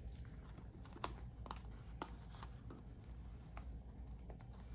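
Light plastic crinkling and soft clicks of sleeved photocards being pushed into a binder's clear plastic pocket pages, a handful of small, separate clicks and rustles over a low hum.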